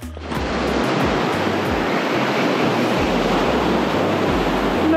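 Pacific Ocean surf breaking and washing over the shoreline rocks: a loud, steady rush of white water that starts just after the opening moment.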